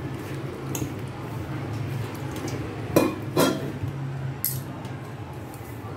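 Hands mixing ragi flour and water in a steel bowl: a soft rustle, with a few sharp clinks of glass bangles and steel, the loudest about three seconds in.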